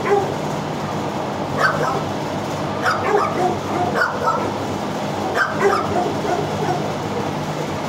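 Dog barking, several short barks and yips about a second apart, over a steady low hum.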